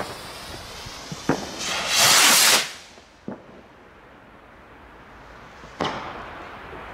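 Funke Blättertanz and Sternflocken Violett fireworks rockets launching: a rushing hiss of a rocket taking off, loudest about two seconds in and dying away a second later. Near the end comes one sharp bang as a rocket bursts in the sky.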